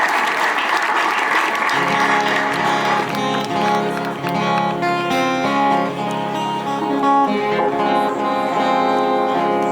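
Crowd applauding, fading as an instrumental tune starts about two seconds in and plays on.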